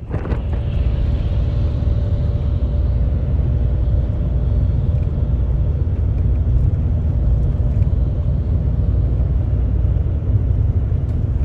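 Steady low rumble of a road vehicle driving, heard from inside its cabin, with a faint steady hum above the road noise.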